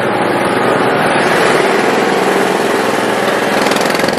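Small petrol engine of an open-top ride car running under throttle: a steady engine roar that swells louder about a second in and stays up until near the end, heard under a roof.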